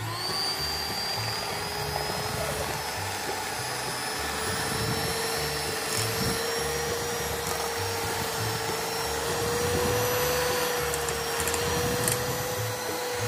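Electric hand mixer running steadily as its beaters whisk cake batter in a glass bowl. The motor's whine switches on at the start and climbs a little in pitch over the first few seconds as it comes up to speed, then holds level.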